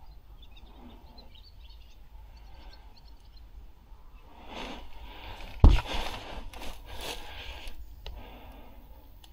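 Clothing and gear rustling and scraping as a body-worn camera's wearer shifts position, with one sharp, loud knock about halfway through. Faint small chirps sound in the quiet first part.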